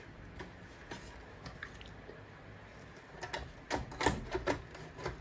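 Sharp mechanical clicks and clacks from a vintage Victor adding machine being handled: a few faint ones early, then a quick cluster about three seconds in.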